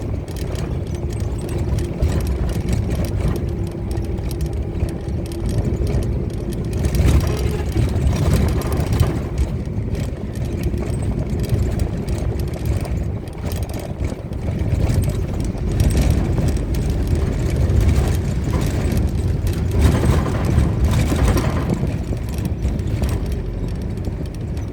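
Motor vehicle travelling on a road: a continuous engine and road rumble that swells and eases every few seconds.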